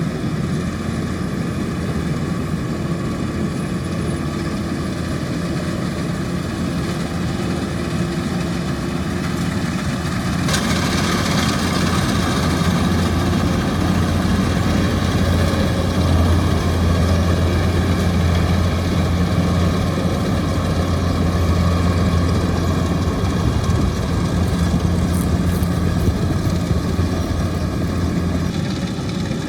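Kubota DC-105X combine harvester running steadily with a deep engine hum while harvesting rice. About ten seconds in, the sound turns louder and harsher and stays that way.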